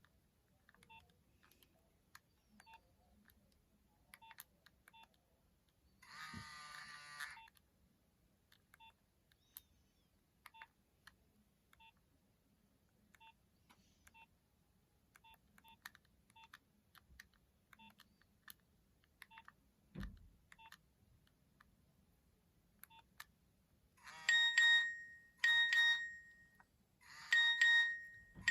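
Nokia 2600 mobile phone beeping: faint short key beeps about once a second, a brief tone snippet about six seconds in, and near the end a louder electronic ringtone of repeated pulsed beeps, about one a second.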